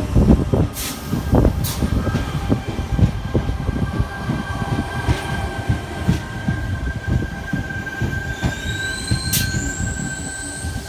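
Sydney Trains Tangara electric train running slowly into the platform. Its wheels rumble and clatter, a steady high whine holds throughout, and a high squeal rises in pitch near the end as the train slows.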